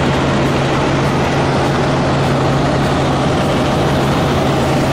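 Helicopter cabin noise in flight: the rotor and engine running loud and steady, a constant rushing din with a steady low hum under it.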